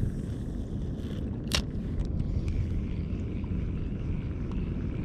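Steady low rumble of wind on the microphone on an open boat, with one sharp click about a second and a half in.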